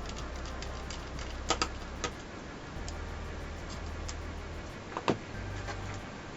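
Light clicks and taps of small laptop parts and screws being handled while a ThinkPad T30's screen is fitted. There are a quick pair of clicks about one and a half seconds in, another shortly after, and the sharpest click near the end.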